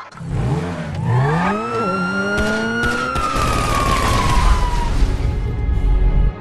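Electronic intro sound design: several synth tones sweep upward, then a long high tone slowly falls away over a whooshing noise, while a deep rumble builds and cuts off sharply near the end.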